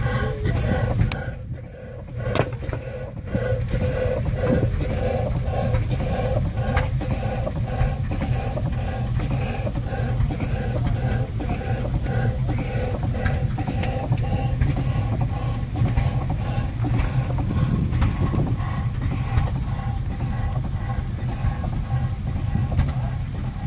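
Pre-1875 Woodbury, Booth & Co. horizontal steam engine running, with a regular beat and the hiss of escaping steam, over a steady low rumble.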